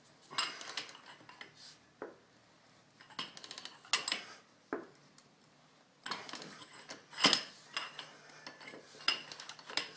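Metal tool clicks and clinks in four short spells, with a couple of single knocks between them, as the screw of a bushing press is cranked down against an upper control arm bushing under heavy pressure.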